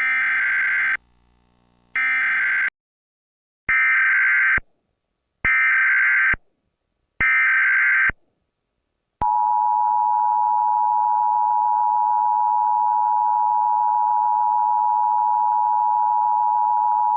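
Emergency Alert System tones. Two short, bright electronic bursts come first, then three roughly one-second warbling bursts of SAME header data. From about nine seconds in, the steady two-tone EAS attention signal (853 and 960 Hz) holds.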